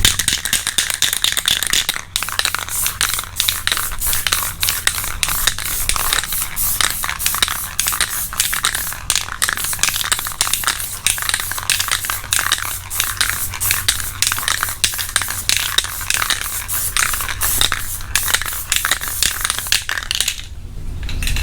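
Aerosol can of flat black spray paint hissing as a guide coat is sprayed over primer, in rapid uneven pulses with a brief break near the end.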